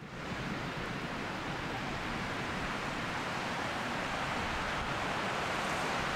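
Steady rushing of a fast mountain river, an even wash of water noise that grows slightly louder.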